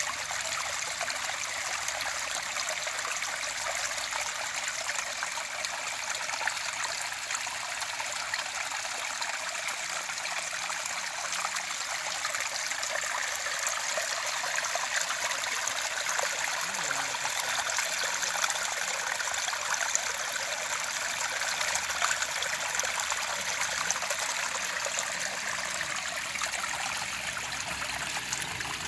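Running water of a stream, flowing steadily and evenly without pause.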